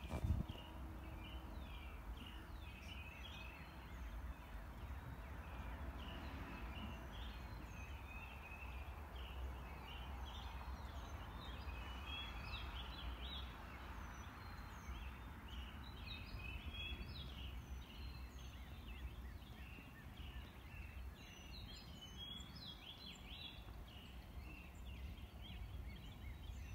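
Faint dawn chorus of songbirds: many short chirps and whistles overlapping throughout, over a steady low rumble, with a single thump at the very start.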